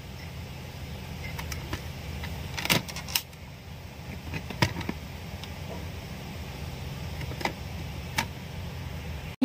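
Handling noise from a small plastic toy stamp: a few scattered light clicks and taps over a faint low hum.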